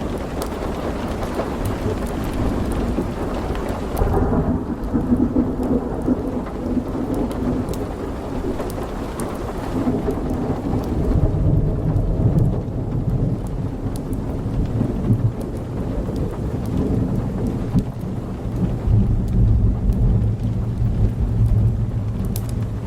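Thunder rumbling low over steady rain, the rumble swelling several times, with scattered sharp crackles on top.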